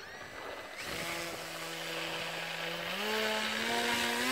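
Small electric motor and propeller of a home-built RC plane running up on the ground: a brief rising whine, then a steady buzzing hum with propeller hiss that steps up in pitch about three seconds in as the throttle is opened.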